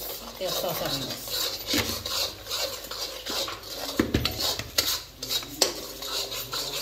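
A spoon stirring and scraping in a cooking pot, with repeated clinks and a few sharper knocks against the pot.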